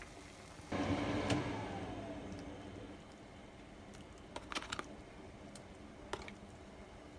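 Pot of kimchi stew simmering on the stove, with a sudden louder rush about a second in that fades over the next two seconds. Later come a few sharp plastic clicks and taps as tofu is lifted from its plastic tray and dropped into the stew.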